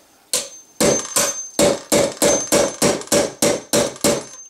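Hammer striking a screw used as a makeshift punch in a rivet hole on a Saiga rifle's stamped-steel receiver, driving out the trigger-guard rivet. About a dozen sharp metallic blows, each with a brief ring, settling into a steady pace of roughly three a second.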